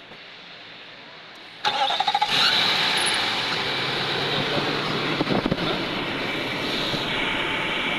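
Nissan Patrol Y62's engine cranked briefly by its newly replaced starter motor and catching almost at once, about two seconds in, then running steadily at idle.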